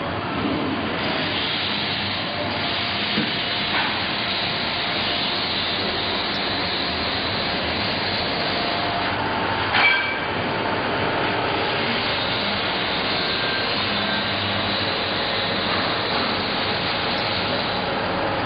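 Straight knife blade grinder running, with its cup-wheel grinding head and traversing carriage making a steady mechanical noise. A sharp clack about ten seconds in, with two lighter knocks earlier.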